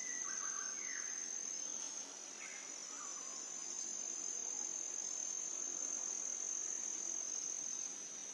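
Steady high-pitched chorus of field insects such as crickets, one unbroken shrill tone that holds through.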